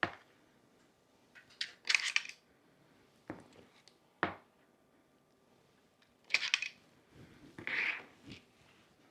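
Kitchen utensils, bowls and ingredient containers clinking and knocking while cupcake batter is being prepared: a scattered series of short clicks and clatters, some single and sharp, some in small clusters.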